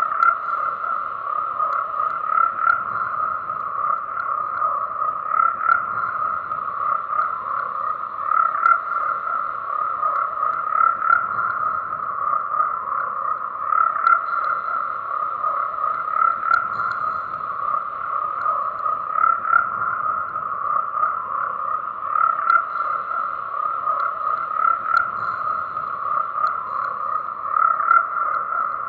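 Dense chorus of frogs croaking: a continuous thick wall of calls, with louder croaks standing out every few seconds.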